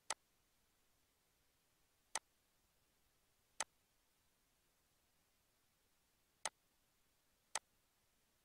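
Computer mouse button clicking: single sharp clicks one to three seconds apart over near-silent room tone.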